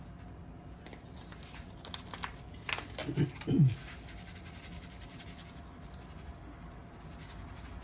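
Paper seasoning packet crinkling and rustling while dry ranch dip mix is shaken out of it onto potatoes and butter, with light scratchy clicks. About three seconds in, two short voice sounds, like a mumbled word, are the loudest thing.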